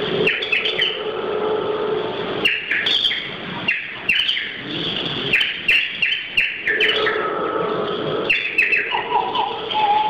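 A bird-call whistle played as part of the music: quick runs of short, chirping whistle notes that slide in pitch, coming in several bursts. A low steady drone sounds between them, and a few lower sliding whistle notes come near the end.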